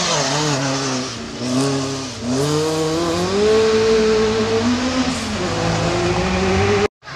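Ford Escort rally car's engine at full throttle, the revs dropping briefly twice at gear changes, then climbing in a long pull, dipping and rising again. The sound cuts off suddenly near the end.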